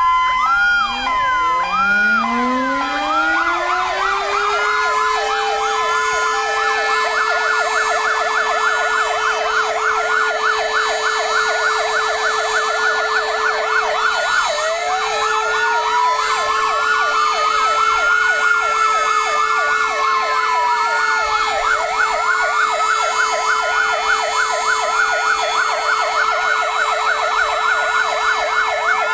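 Several sirens sounding together at a fire station. One winds up from a low tone to a steady held note over the first few seconds, while fire engine sirens wail and warble over it, one sweeping slowly up and back down through the middle. The sirens are sounded as a tribute signal for the 'W' hour anniversary of the Warsaw Uprising.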